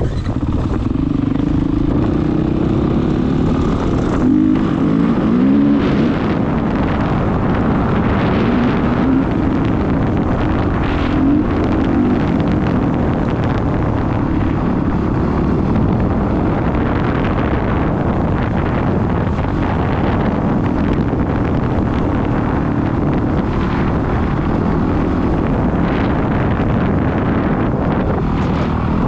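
Dirt bike engine running under way, its pitch rising and falling with the throttle over rough ground, mixed with wind buffeting the helmet-mounted microphone.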